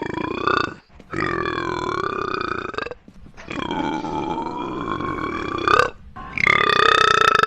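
A girl's long, drawn-out, really deep burps, four in a row with short breaths between. Each lasts about two seconds and has a steady voiced pitch.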